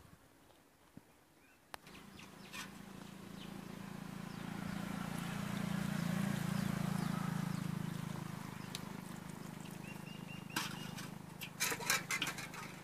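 A low, steady hum swells over several seconds and then eases off. Near the end come several sharp knocks, fitting a wooden stirring stick striking an aluminium cooking pot.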